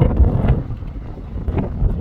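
Strong wind gusting against the microphone, a loud, uneven low rumble that swells and drops.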